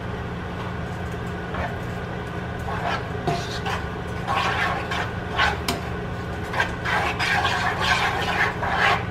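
Red silicone spatula stirring shredded cheese, milk and eggs in a stainless steel pot: soft, irregular scraping and wet stirring sounds that get busier about halfway through, over a steady low hum.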